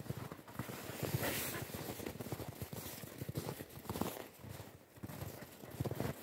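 Footsteps crunching through packed snow, a run of quick irregular crunches.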